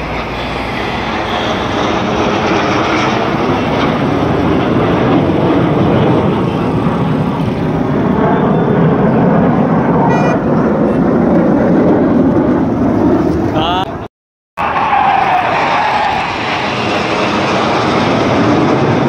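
Jet aircraft flying past overhead: a loud rushing noise that builds and slowly sweeps in pitch. The recording cuts out for about half a second around fourteen seconds in.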